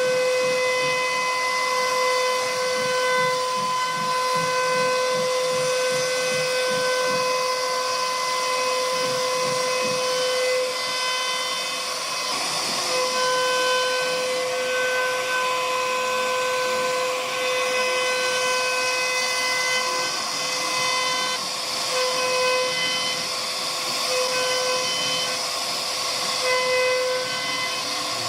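CNC router spindle running with a steady high-pitched whine while the bit cuts wood with a hissing noise. The whine drops out for a moment about halfway through, then comes and goes in short stretches near the end.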